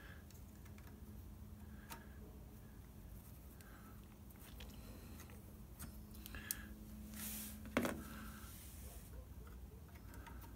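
A few light clicks and knocks of metal parts being handled at a brake lathe's gearbox mount, the loudest about three quarters of the way through with a brief rustle just before it, over a faint steady hum.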